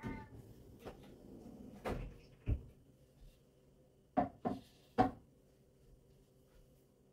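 A deep kitchen drawer slides and thuds shut, then wooden cutting boards knock three times in quick succession as they are set down on the countertop.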